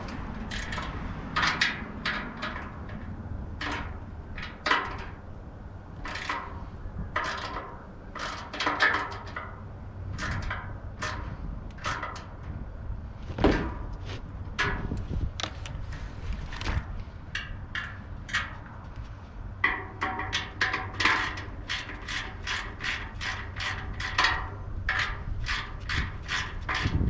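Ratchet wrench clicking in short runs as nuts are tightened on a steel bagger frame, with a louder knock about halfway through. Near the end the clicking turns into a faster, steadier run.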